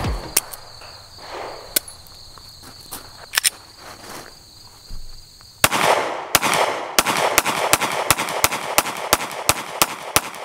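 Glock 43X 9mm pistol firing: a first shot about halfway in, then a steady string of shots at roughly three a second, over a steady high-pitched insect drone.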